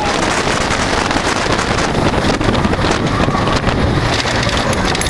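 Wind rushing over the microphone with the wooden roller coaster train running fast along its track, a loud steady roar with rattling.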